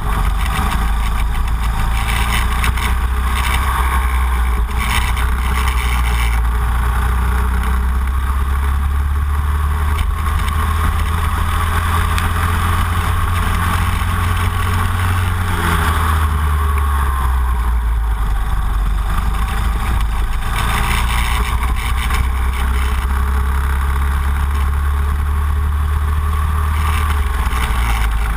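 Racing kart engine heard from onboard at speed, its pitch rising and falling with the throttle through straights and corners, over a heavy low wind rumble on the microphone.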